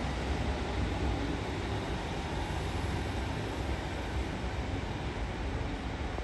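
Class 150 Sprinter diesel multiple unit's underfloor Cummins diesel engines running with a steady low rumble.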